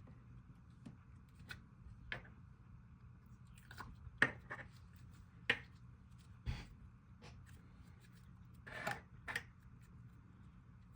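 Slime being squished and stretched by hand: scattered soft pops and clicks, the sharpest around the middle, with a short crackly run near the end.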